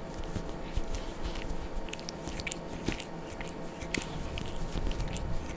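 A cat licking its paw and fur up close while grooming: a fast, irregular run of small wet clicks and smacks from its tongue and mouth.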